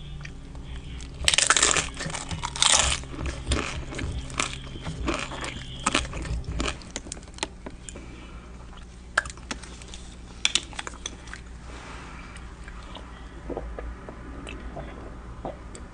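A person eating: loud crunchy bites about one and a half to three seconds in, then chewing with many short mouth clicks and crackles that grow quieter and sparser.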